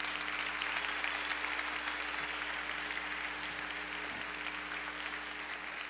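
Large audience applauding in a theatre: a dense, even patter of many hands clapping that slowly tapers off toward the end.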